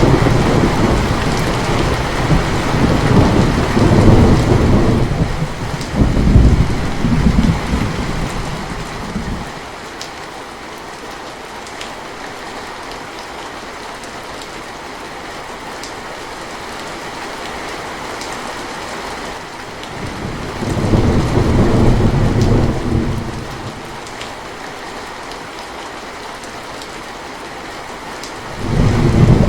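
Steady heavy rain hissing, with long rolls of thunder rumbling over it: one through the first nine seconds or so, another around twenty seconds in, and a third starting near the end.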